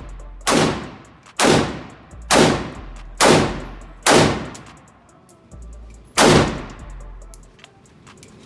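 Gunshots from a firearm fired one shot at a time: five shots at a steady pace of about one a second, then a short pause and a sixth shot. Each shot trails off briefly after it.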